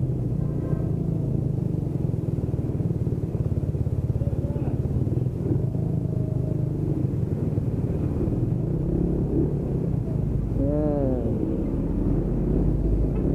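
Motorcycle engine running steadily while riding, under a low, muffled rumble of wind on the camera's microphone, which is covered to cut wind noise. About 11 seconds in, a short wavering pitched sound rises and falls.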